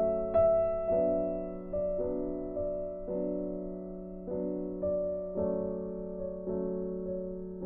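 Background music: gentle piano chords, each struck and left to ring, with a new chord about every second.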